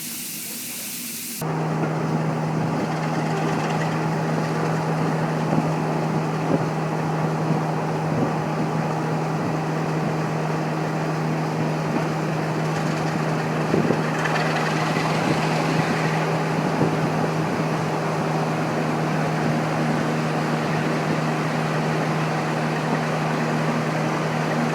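Steam hiss for about the first second and a half, then a sudden change to a diesel locomotive's engine idling with a steady low hum, with a few light knocks near the middle.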